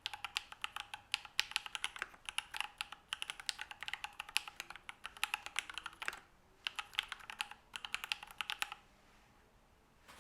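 Fast typing on a Matrix Noah V2 mechanical keyboard with lubed Alpaca V2 linear switches, an aluminium plate and PBT keycaps: a dense stream of keystrokes with a brief pause about six seconds in. The typing stops shortly before the end.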